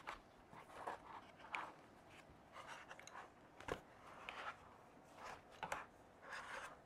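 Faint handling noises: quiet rubbing, scraping and light knocks as a DJI Ronin-S gimbal is worked back into its foam case, with one sharper click a little past the middle.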